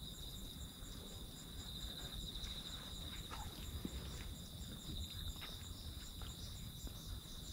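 Crickets chirping steadily in a continuous high pulsing trill, with faint scattered clicks beneath.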